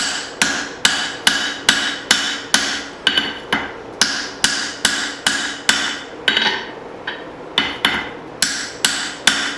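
Steady hand-hammer blows on hot steel at the anvil, about two a second, each with a short metallic ring, with a brief pause partway through.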